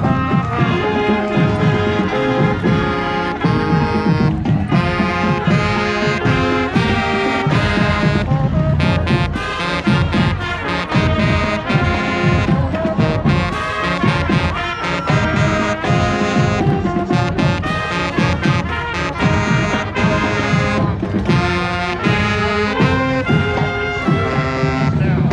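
Marching band playing: brass instruments carry the melody over drums.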